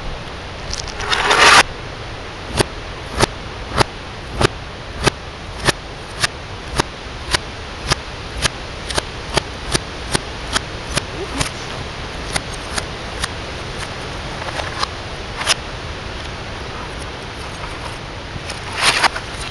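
Sledgehammer smashing the plastic casing and debris of a CRT TV, played backwards: about a second in, and again near the end, a crash swells and then cuts off abruptly. Between them runs a regular series of sharp clicks that come gradually closer together and fainter.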